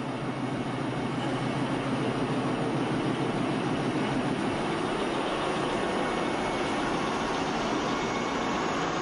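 Diesel locomotive engine idling with a steady hum.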